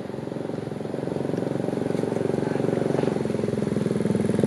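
A vehicle engine running with a fast, even pulse, growing steadily louder.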